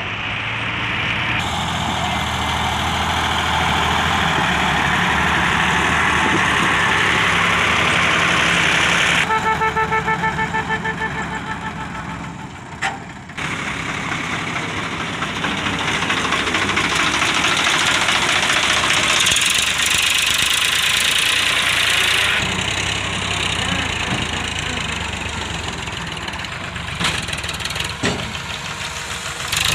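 Sonalika DI-750 tractor's diesel engine running under load while its hydraulics tip a loaded soil trailer. About nine seconds in, a pulsing high-pitched whine is heard for a few seconds.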